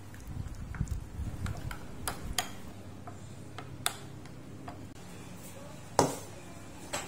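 Metal spoon stirring a thick sauce in a ceramic bowl, scraping and clinking lightly against its sides. About six seconds in there is one much louder knock as a stainless steel mixing bowl is handled on the counter.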